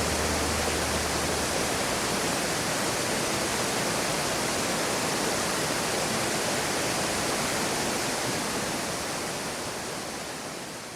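Steady rushing of mountain water falling and flowing, a dense even hiss, fading out near the end. The last low notes of background music die away about a second in.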